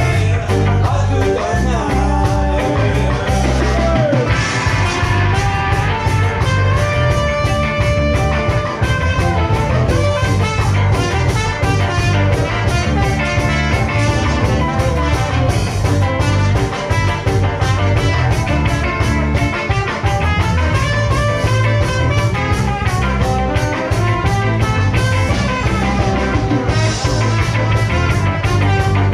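A live band playing upbeat music: trumpet lines over electric bass, guitar and a steady drum beat.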